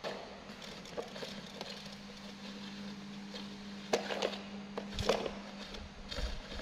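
Scattered light clicks and knocks of a plastic toy car's wheels being handled and turned by a small monkey, over a faint steady hum that fades out about four seconds in.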